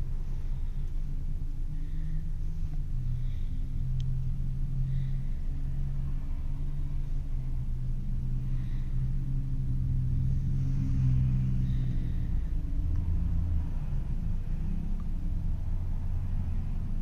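Steady low rumble of vehicle engines and road traffic, with a faint engine hum that drifts slightly in pitch.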